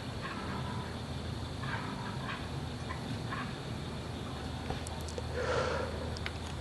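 An unidentified animal calling in the dark in short grunting, gurgling bursts, several times, with one louder, noisier call about five and a half seconds in; the recorder thinks it could be a wild pig. Crickets chirp steadily underneath.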